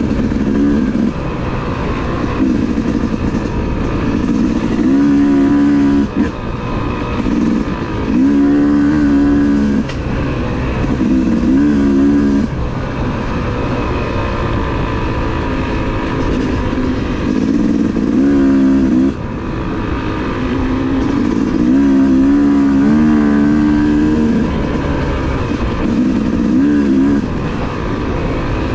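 Yamaha YZ250 two-stroke dirt bike engine running under way, revving up and easing off in surges every few seconds as the rider works the throttle and gears.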